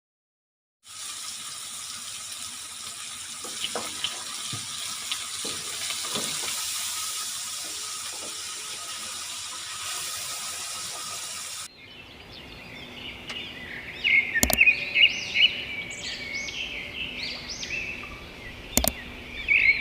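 Tap water running into a sink with a few light clatters, stopping abruptly about two-thirds of the way in. Birds chirping follow, with two sharp knocks.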